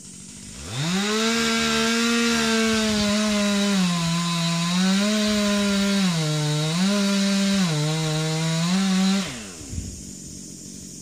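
Two-stroke chainsaw throttled up to full speed and cutting into wood, its pitch dipping several times as the chain bogs under load. The throttle is released about nine seconds in and the engine drops back to a low idle.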